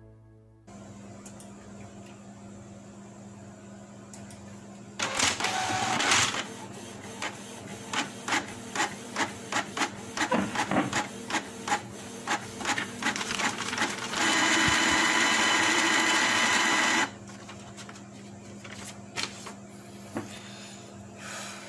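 Canon PIXMA iP2870S inkjet printer's mechanism running: a burst of motor noise about five seconds in, then a run of quick clicks, two to three a second, from its feed and carriage gears, then a steady motor whine for about three seconds that stops abruptly, then a few soft clicks. It is trying to feed a sheet from the rear tray, the feed cycle that on this printer ends in a paper jam (error 1300).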